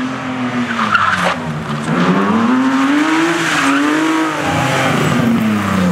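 BMW E36 3-series rally car's engine revving hard through a tight chicane, its pitch rising and falling several times as the throttle is worked, growing louder about two seconds in as the car comes close.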